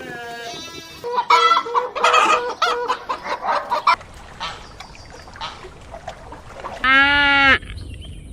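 Chickens clucking and calling, with a dense run of loud calls in the first few seconds and scattered short clucks after. Near the end comes one loud, steady held call of under a second.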